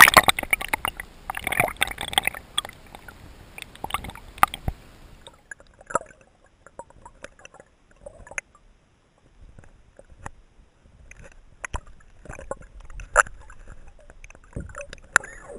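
Water gurgling and sloshing around a camera held underwater, heard muffled, as hands release a grayling. A loud splash comes at the very start, then scattered small clicks and knocks.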